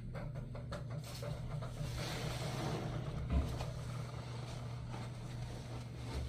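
Wet sponge being squeezed and worked in a sponge 'fake rinse', giving a steady squishing, hissing wet noise over a low hum, with one soft thump about three and a half seconds in.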